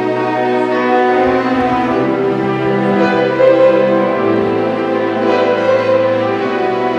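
Orchestra with bowed strings to the fore (violins over cellos and basses) playing slow, long-held chords.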